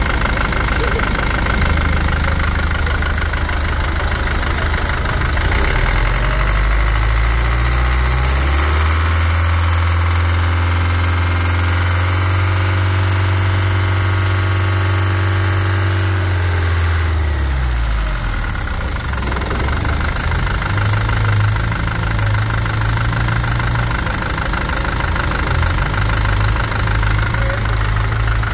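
2006 UD/Nissan J05D-TA 4.7-litre turbo diesel engine running. It idles, then revs up about a third of the way in, holds the higher speed for several seconds, and drops back to idle.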